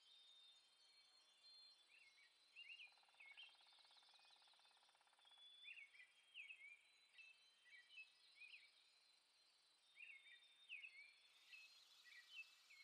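Faint bird chirps: short hooked notes in quick groups of two or three, repeating every second or so, over quiet outdoor ambience. A faint buzz runs for a couple of seconds about three seconds in.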